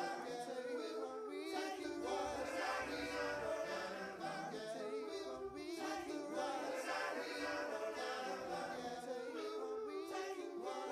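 Music with several voices singing, dense and wavering, at a steady level.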